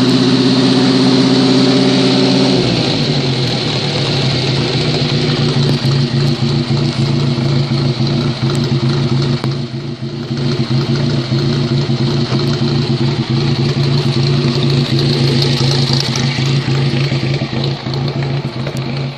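Coventry Climax stationary engine running. About two and a half seconds in, its speed drops from a fast run to a lower, even idle, and it keeps running steadily.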